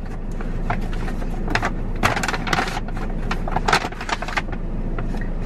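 Brown paper grocery bags rustling and crinkling as items are handled and packed into them, with irregular small clicks and knocks, over a steady low hum of the car's cabin.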